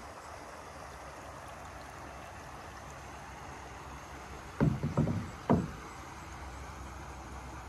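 Steady wind noise, then a quick cluster of three or four loud knocks from a wooden canoe paddle being set down against the canoe, a little past halfway through.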